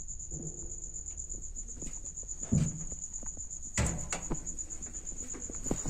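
A cricket trilling steadily in a high, fast-pulsing tone, with a few dull knocks, the loudest about two-thirds of the way through.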